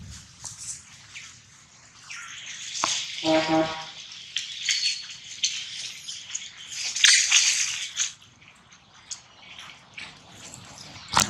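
Dry fallen leaves rustling and crackling in irregular bursts as macaques shuffle and move over the leaf litter. There is one short pitched call a little after three seconds in, and a sharp click near the end.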